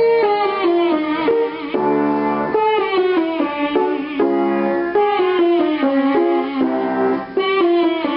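A singer humming a vocal warm-up on the 'ng' sound, a little nasal, stepping up and down a scale pattern, with piano chords underneath.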